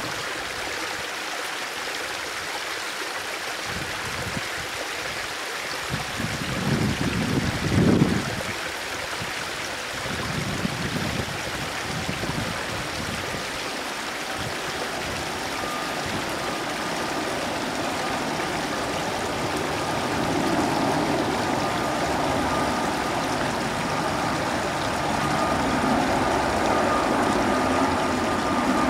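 Airbus A380 jet engines approaching from a distance: a steady rushing noise that grows louder, with a high steady whine joining about halfway through. Low gusty rumbles of wind on the microphone come briefly about a quarter of the way in.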